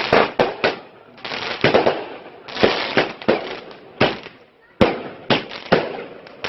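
Fireworks going off: an irregular series of sharp bangs, each with a short echoing tail, and a stretch of crackling about a second in.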